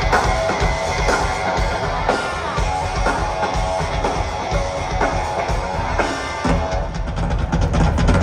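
Live rock band playing amplified: drum kit and percussion driving the music with electric guitar, recorded on a phone from the audience. Near the end the drumming grows heavier and busier.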